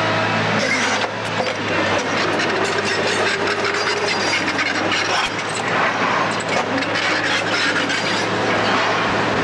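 Building demolition: a heavy machine's engine runs steadily under continuous crunching and cracking of breaking material, with many sharp snaps and knocks of falling debris.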